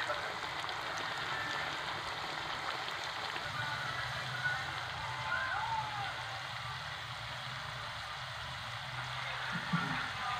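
Thin potato slices deep-frying in hot oil, sizzling and bubbling steadily.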